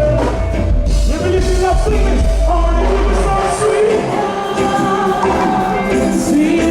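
Live band music with a singer's wordless vocal over it. The heavy bass drops out about three and a half seconds in while the voice and the other instruments carry on.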